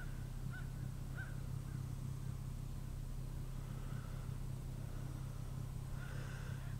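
A steady low hum with a few short bird calls in the first two seconds.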